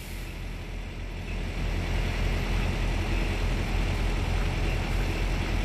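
Semi-truck's diesel engine running as the tractor-trailer backs slowly, a steady low rumble that grows louder about two seconds in.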